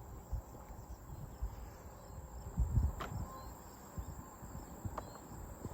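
Quiet rural outdoor ambience: a steady high insect hum, such as crickets, over low irregular rumbles like wind on the microphone, with two sharp clicks about three and five seconds in.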